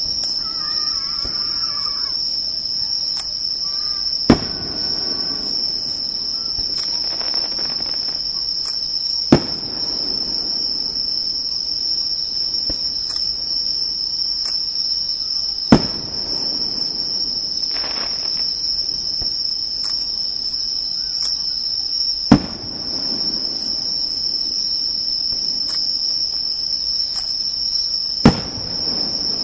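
Fireworks shells bursting five times, a sharp bang roughly every six seconds with a short rumble after each, over the steady high-pitched chirring of insects.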